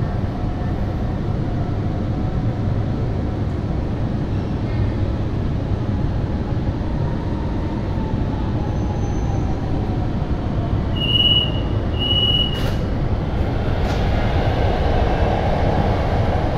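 Interior of a CRRC-built Hanoi Metro train braking to a stop at a station: a steady rumble with a faint whine falling in pitch as it slows. About eleven seconds in come two short high beeps, then two sharp clunks and a rush of hiss as the doors open onto the platform.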